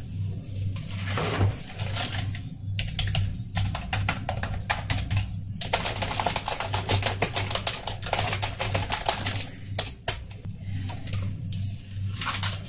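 Typing on a Razer Cyclosa membrane keyboard: long, dense runs of rapid key clicks. Near the end the keyboard is lifted and turned over with a shuffle of handling noise.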